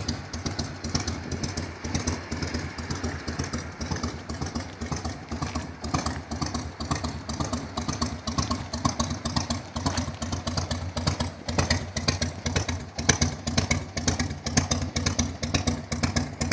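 Harley-Davidson Fat Boy's 1340 cc Evolution V-twin idling through its exhaust, with a steady, uneven beat of a few pulses a second.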